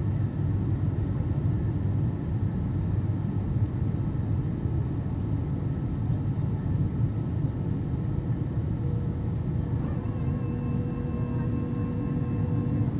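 Steady in-cabin rumble of a Boeing 777-200 on approach: airflow and its Pratt & Whitney PW4000 engines, heard from a seat over the wing. About nine to ten seconds in, a few steady humming tones join the rumble.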